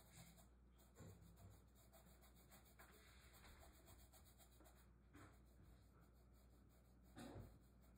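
Near silence with the faint scratchy rubbing of a paintbrush scrubbing paint onto a canvas board, a little louder briefly near the end.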